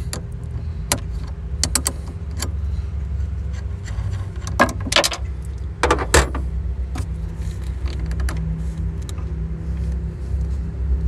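Wrench clicking and clinking on a car battery's cable-clamp nut as the battery cable is loosened and disconnected, in scattered sharp metal clicks, over a steady low rumble.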